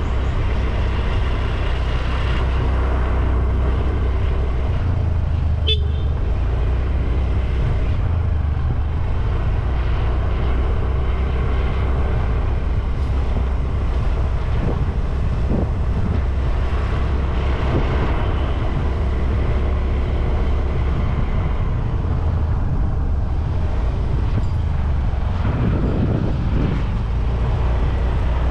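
Moped engine running steadily under way, with wind rushing over the helmet-mounted action camera's microphone.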